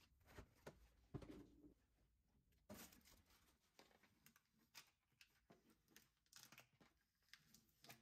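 Faint rustling, crinkling and light plastic clicks and taps as a clear plastic turntable organiser is handled and a paper label is peeled off it.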